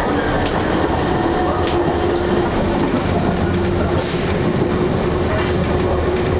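Electric commuter train running at speed, heard from the driver's cab: a steady rumble of wheels on the track with a few clicks over rail joints and a steady hum.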